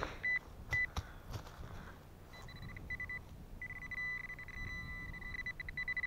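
Handheld metal-detecting pinpointer beeping at a steady high pitch. Two short beeps come first, then from about two seconds in it pulses fast and runs into an almost continuous tone, which means the probe is right on a metal target in the dug soil. A few knocks of digging come in the first second or so.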